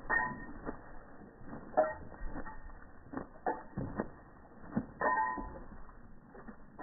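Irregular creaks and knocks, a second or so apart, from a wooden floating dock as a wet Labrador moves about on it.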